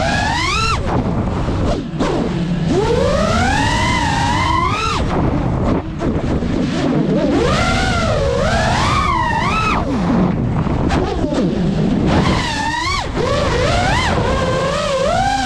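GEPRC Mark5 FPV quadcopter's motors and propellers whining, the pitch sweeping up and down every second or two as the throttle is punched and eased through rolls and turns.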